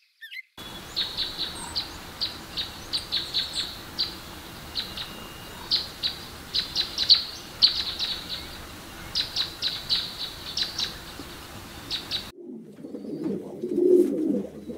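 Bird chirping: many short, high chirps in quick irregular runs over a steady background hiss. Near the end it cuts to a dove cooing, lower and repeated.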